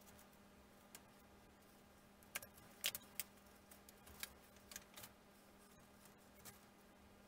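Light clicks and taps of thin laser-cut wooden kit parts being pushed into their slots and handled on a model plane framework, scattered irregularly, with a cluster of sharper clicks about three seconds in.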